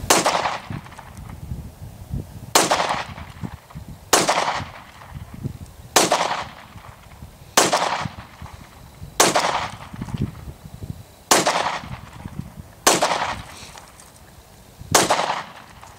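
Nine pistol shots from a Glock 22 (.40 S&W), fired one at a time about every one and a half to two seconds, each with a short echo trailing off after it.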